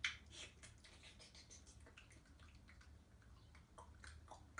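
Near silence: room tone with a low steady hum and a few faint soft clicks and rustles, one slightly louder tick right at the start.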